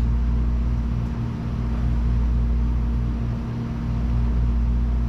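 A steady low mechanical hum with a faint regular pulsing, a few beats a second.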